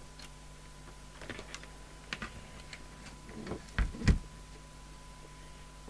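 Irregular clicks and light knocks of a plug being pulled out and equipment handled on a workbench, with two heavier thumps about four seconds in.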